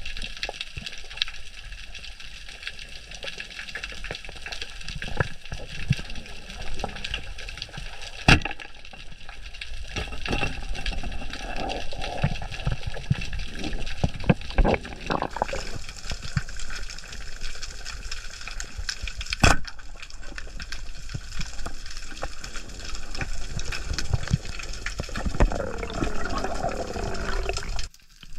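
Underwater ambience picked up by a diving camera: a steady wash of water noise with a constant crackle of small clicks, and two sharp knocks, one about eight seconds in and one about twenty seconds in.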